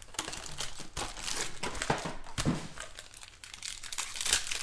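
Foil trading-card pack wrapper crinkling in the hands as it is handled, with irregular crackles and a few sharp clicks.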